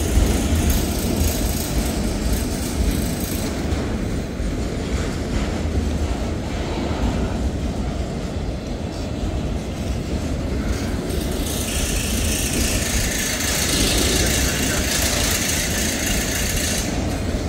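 Freight train of autorack cars rolling past: a steady low rumble of steel wheels on rail, with a hiss rising over it for the last five seconds or so.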